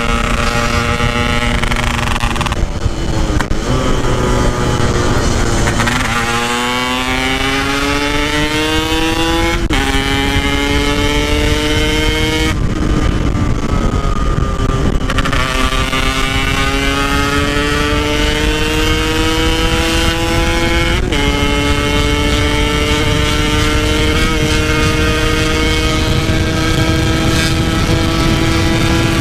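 Two-stroke Yamaha RX-King engine pulling hard under acceleration. Its pitch climbs steadily in each gear and drops sharply at upshifts about 3, 10 and 21 seconds in. The throttle is eased for a couple of seconds around the middle before it pulls again.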